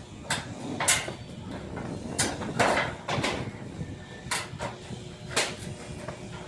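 Irregular sharp knocks and clatter, about one a second, from hands-on repair work on a poultry house, over a steady low background rumble.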